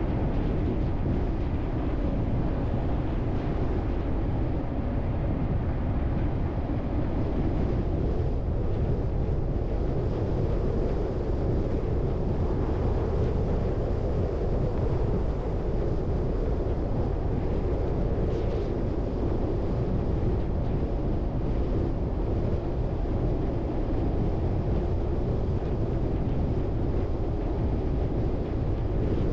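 Car driving at a steady speed: a constant low rumble of engine and road noise with no breaks or changes.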